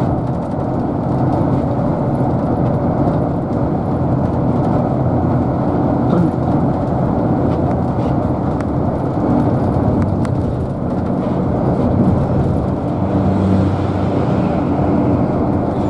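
Steady road and engine noise of a car being driven, a continuous low rumble with a faint engine hum and no sharp events.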